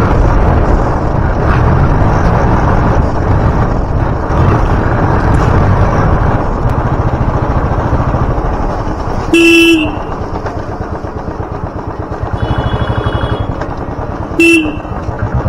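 Motorcycle engine running under way with road and wind noise, easing off after about ten seconds. A horn sounds twice, a half-second blast about nine seconds in and a shorter one near the end, each dipping in pitch as it stops; these are the loudest sounds, with a fainter, higher-pitched horn in between.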